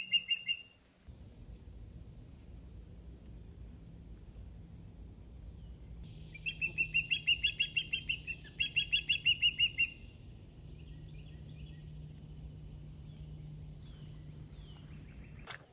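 Osprey calling, two quick runs of high repeated chirps about six seconds in, each lasting a second or two. These are territorial calls at an intruder near its home.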